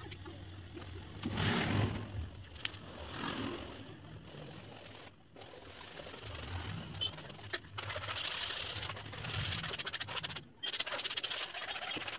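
Stiff bristle brush scrubbing oil paint across a stretched canvas in runs of quick back-and-forth strokes, busiest in the second half.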